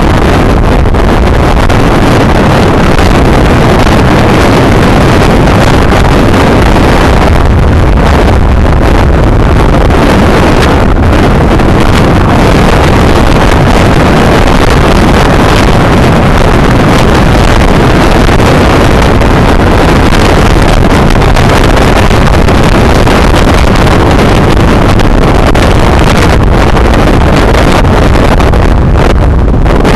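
Loud, steady rush of wind buffeting the microphone of a camera on a moving road bike at speed, with no let-up.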